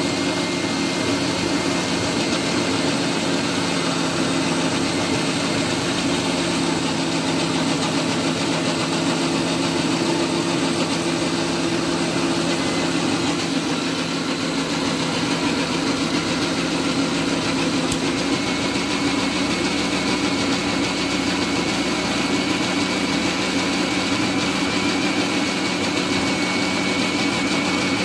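Electric mixer grinder running steadily, grinding mango pieces in its jar, its hum shifting slightly about two-thirds of the way through.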